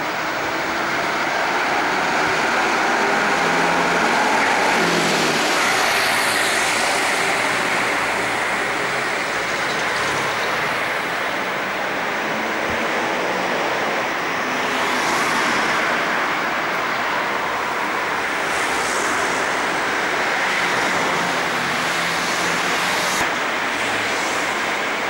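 Street traffic: engines running and vehicles passing one after another, their tyre and engine noise swelling and fading several times. An engine note drops about five seconds in.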